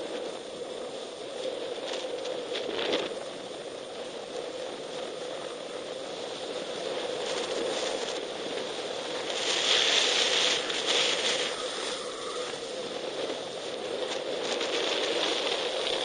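Steady hiss and scrape of sliding down a packed-snow ski slope, growing louder for a couple of seconds about ten seconds in.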